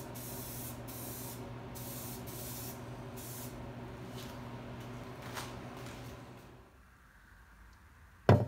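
Aerosol spray paint can spraying in several short hissing bursts over a steady low hum. The spraying stops about three and a half seconds in, and the hum fades out a few seconds later. Near the end there is one sharp knock as a painted pressed-steel toy truck part is set down on a wooden tabletop.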